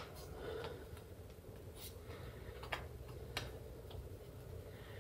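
Faint, irregular light clicks and taps, about half a dozen, over a low steady hum.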